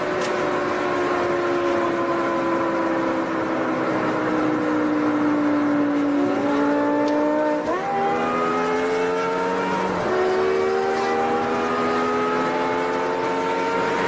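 Supercharged V10 of a BMW E60 M5, heard from inside the cabin, pulling hard. Its revs sink slowly at first, then climb. About eight seconds in the pitch jumps up abruptly, as with a downshift. The revs climb again, drop sharply at ten seconds with an upshift, and rise once more.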